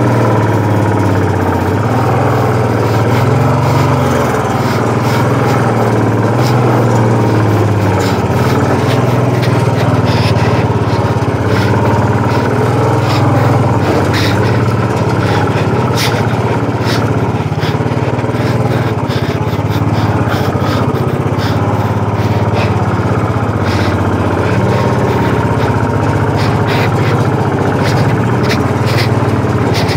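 Royal Enfield single-cylinder motorcycle engine running steadily at low revs, rising and falling a little, with frequent short clicks and rattles over it.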